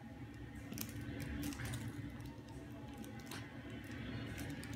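Light rustling and a few sharp clicks from a baby handling a plush monkey toy that hangs from a play-gym arch, over a steady low hum.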